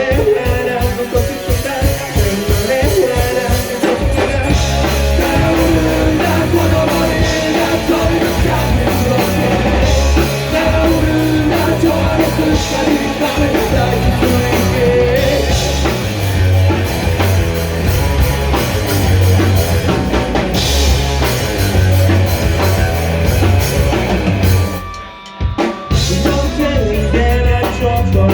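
A rock band playing live at full volume: a pounding drum kit with electric guitar and bass. About 25 seconds in the band drops out for a moment, then crashes back in.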